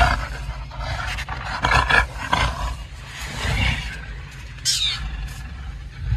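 Leopard and warthog fighting: growls in irregular bursts, with a brief high cry that falls in pitch about four and a half seconds in.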